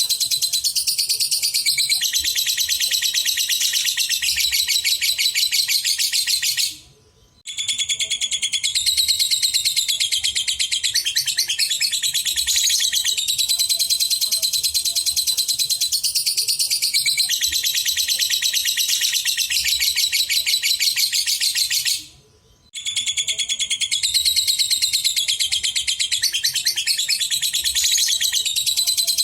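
A lovebird singing in long unbroken runs of rapid, high-pitched chattering, with two short pauses.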